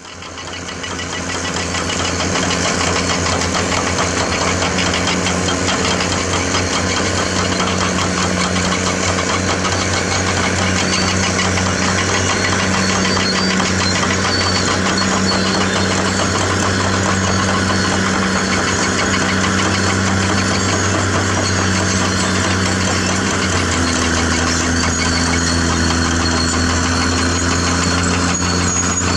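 Caterpillar D6R bulldozer's diesel engine running steadily with a dense, rapid clatter. Its note shifts a little higher about 23 seconds in.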